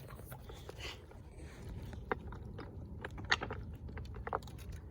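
Scattered light clicks and small scrapes of close handling, over a steady low rumble.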